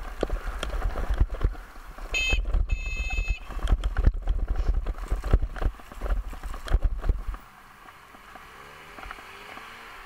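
Bicycle rolling over cobblestones, bike and mounted camera rattling with a rumble and constant jolting knocks, with a brief high ringing sound about two seconds in. About seven seconds in the ride smooths onto asphalt and the noise drops to a quieter steady hiss.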